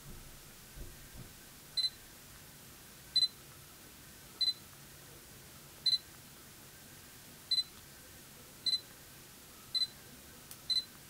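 Sony NEX-7's autofocus confirmation beep, a short high double pip, sounding eight times about once every second or so as focus locks again and again. A few faint handling knocks come in the first second.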